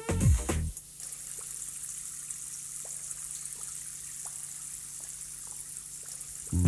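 Electronic music with a drum beat stops under a second in. Then comes a steady hiss of rain falling and splashing on a running track.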